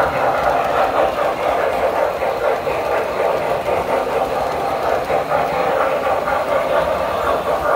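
Tinplate standard-gauge electric toy trains running on metal track: a steady rumble and clatter of wheels and motors as a passenger train and a locomotive pulling a tank car pass by.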